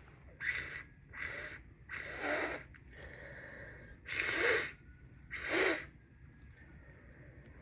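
A congested nose sniffling and blowing: five short, noisy breaths through the nose, the last two loudest. The nose is blocked with a head cold.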